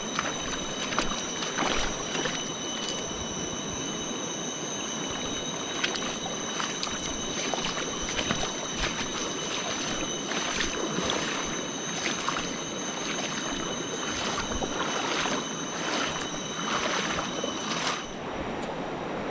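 River rapids rushing steadily, with a thin, steady high whine over it that cuts off about 18 seconds in, and scattered light ticks.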